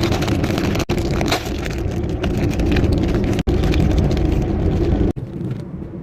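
Road traffic noise with a heavy low rumble, broken by three abrupt cuts, and quieter after the last one, about five seconds in.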